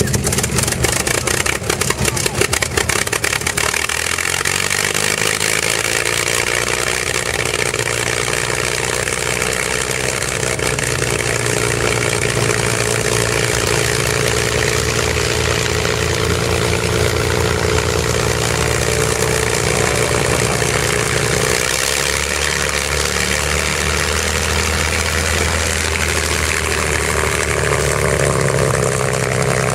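P-51 Mustang's V-12 piston engine running rough with a rapid, uneven popping from the exhaust stacks for the first few seconds, then settling into a steady idle. Its speed changes about two-thirds of the way through.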